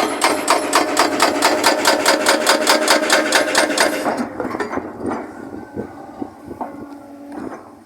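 Hsuntay ST350C hydraulic breaker on an excavator hammering, a rapid even run of about seven blows a second that stops suddenly about four seconds in. After that the excavator keeps running, quieter, with a few knocks.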